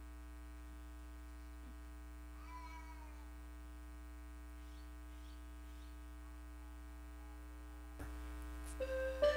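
Steady electrical mains hum with a faint buzz of even overtones. About eight seconds in there is a click, after which the hum is slightly louder, and the first notes of music come in right at the end.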